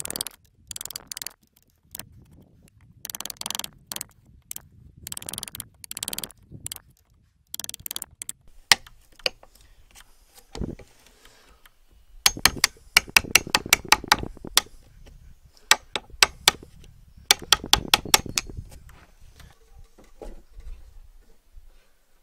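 Steel chisel working the end of a spruce log. It starts with a series of short scraping paring strokes. Past the middle come quick runs of sharp tapping knocks as the chisel is struck.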